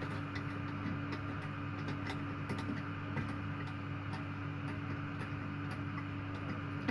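Light, irregular clicks and taps of a plastic hinge nut being turned by hand on its threaded stud under a toilet pan, over a steady low hum.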